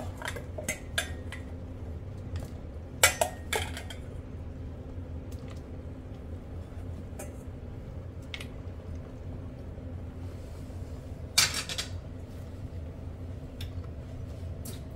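Kitchen clatter: pots, lids and metal utensils clinking and knocking now and then, in small clusters at the start, about three seconds in and again a little past eleven seconds, over a steady low hum.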